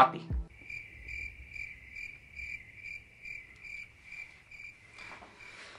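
Crickets chirping as a comedy sound effect: a high chirp pulsing about two or three times a second, starting about half a second in. It is the stock cue for awkward silence after a joke falls flat.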